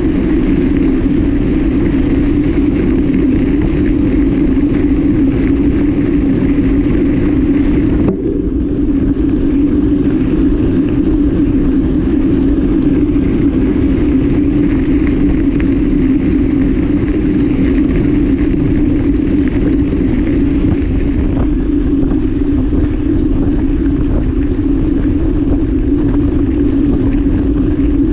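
Mountain bike ridden on a gravel road, heard from a camera mounted on the bike: a steady, loud rush of wind on the microphone mixed with the rumble of knobby tyres on gravel.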